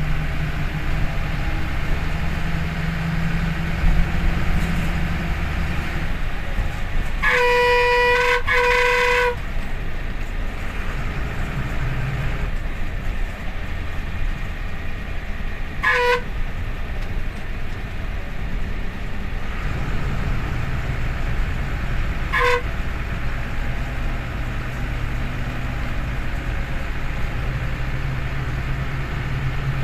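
Bus engine and road noise heard from the driver's cabin, the engine's low hum dropping away and returning a few times. The bus horn gives two long blasts about seven seconds in, then two short toots about sixteen and twenty-two seconds in, warning traffic on the bends.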